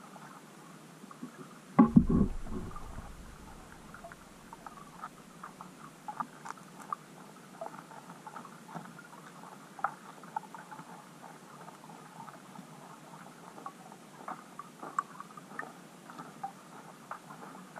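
Underwater sound through a camera housing: scattered small clicks and ticks, with one loud knock and a short low rumble about two seconds in.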